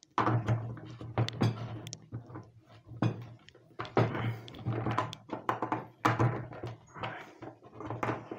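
Skateboard parts being handled and fitted onto a truck axle: an irregular run of clicks and dull knocks from the metal truck, wheel, bearing, nut and tool against the deck and the wooden work board.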